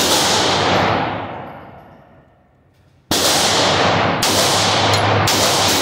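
Gunshots from a Glock 17 9mm pistol in an indoor range, each ringing with a long echo: one shot right at the start that dies away over about two seconds, then from about three seconds in a string of shots roughly a second apart.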